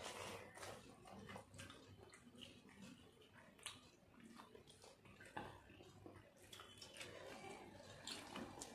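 Faint eating sounds: rice being mixed and squished by hand on china plates, with chewing and a few small sharp clicks.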